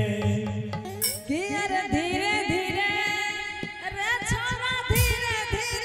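Live stage band music for a folk song: a melody instrument plays quick phrases that rise and fall over sharp drum strokes, with a loud crash about five seconds in.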